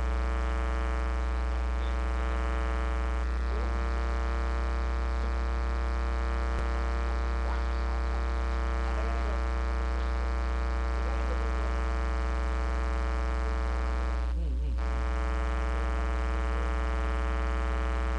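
Steady electrical mains hum and buzz: a loud low hum with a stack of evenly spaced overtones, unchanging throughout.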